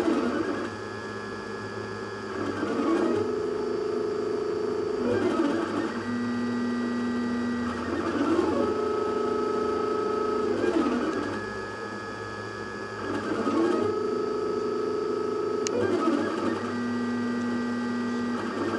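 3D printer's stepper motors whining as the print head traces a spiral-vase column. Each steady whine lasts two to three seconds and changes pitch through a short rattling patch as the head turns each rounded corner. The cycle repeats about every ten and a half seconds, once per layer.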